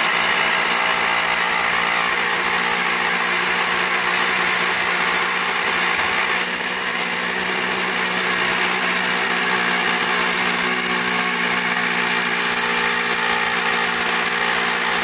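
Handheld power drill running steadily at one speed, working on a stuck screw in a cast iron coffin lid that may be rusted fast.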